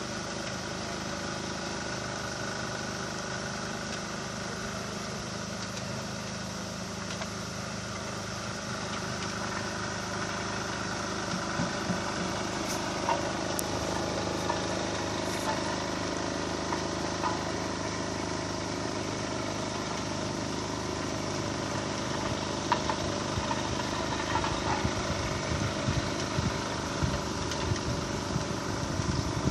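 An engine running steadily, with scattered short knocks and clicks in the second half.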